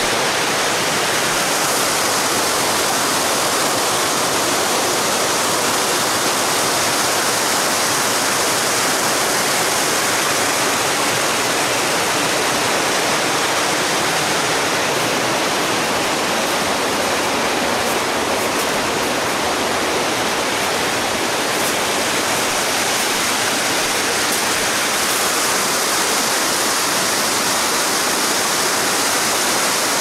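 Small river cascade rushing over a stepped weir: a loud, steady rush of falling water.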